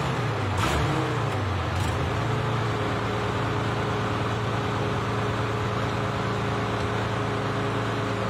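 Soviet T-34 tank's V12 diesel engine in a giant custom motorcycle, revving briefly with its pitch rising and falling, then settling into a steady, deep idle about two seconds in.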